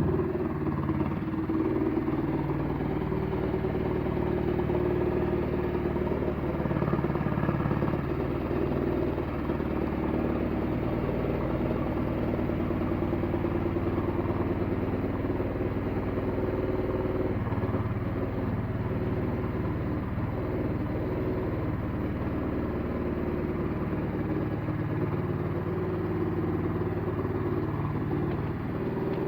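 Changchai diesel engine of a LAR L301 mini excavator running steadily at work, its pitch shifting slightly as the load changes.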